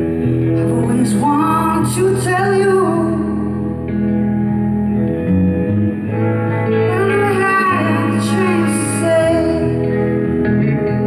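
Live band music: a woman sings drawn-out phrases over long held keyboard chords, electric guitar and drums.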